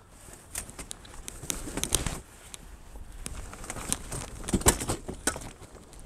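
Folding camp chairs being pulled out of an RV storage compartment: fabric rustling and metal frames clicking and knocking. The louder knocks come about two seconds in and again near the two-thirds mark.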